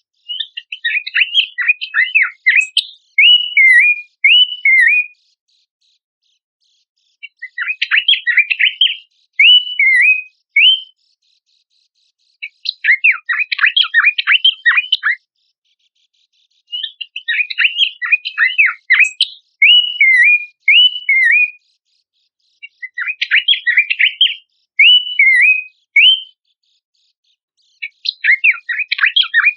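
Pelanduk semak (Horsfield's babbler) song, repeated about every five to six seconds. Each phrase opens with a rapid jumble of chattering notes and ends in several short, hooked whistles, with clean silence between phrases.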